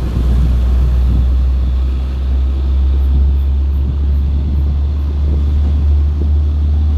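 Hino 500 truck's diesel engine running with a steady, deep low rumble, no horn sounding.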